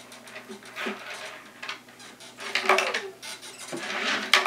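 Plastic toys being handled: short scattered clacks and rustles as a doll and a toy shopping cart are moved about, busiest near the middle and again near the end.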